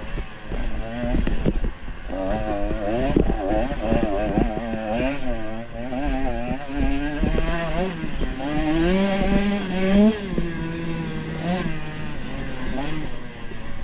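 Dirt bike engine under hard riding, its pitch rising and falling quickly and constantly as the throttle is worked, held higher for a moment about nine seconds in.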